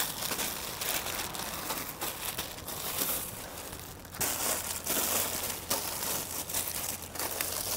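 Plastic packaging crinkling and rustling in irregular crackles as it is handled.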